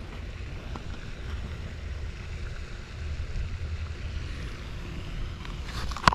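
Wind buffeting the microphone as a steady low rumble, with a faint click about a second in and a sharper click near the end as a clear plastic tackle box is handled.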